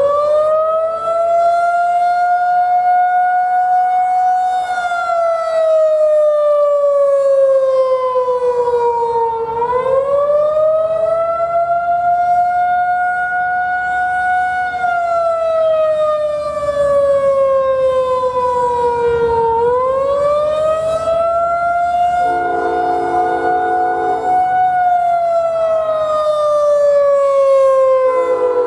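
Federal Signal 2001-130 rotating single-tone outdoor warning siren sounding the attack signal: its wail climbs quickly, holds high for a few seconds, then slides slowly down, repeating about every ten seconds. A multi-note horn blows for a few seconds about three-quarters through and starts again at the very end.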